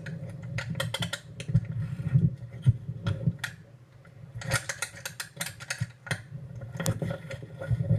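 Irregular clicks, knocks and rattles of the camera being handled and moved about, over a steady low hum.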